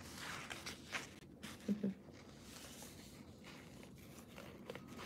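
Faint rustling and sliding of printed sheets of paper being handled, with a short low hum just under two seconds in.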